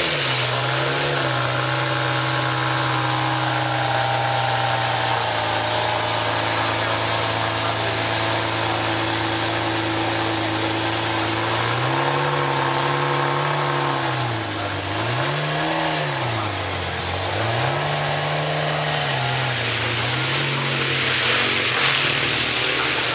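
Lamborghini Murciélago LP640's 6.5-litre V12 idling just after start-up. Its fast idle drops a little in the first second and then holds steady. About halfway through, the engine speed rises and falls several times before settling back to a steady idle.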